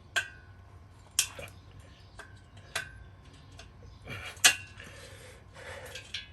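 Metal parts of a trike being handled during disassembly: about five sharp metallic clinks and knocks, some with a short ring, the loudest about four and a half seconds in.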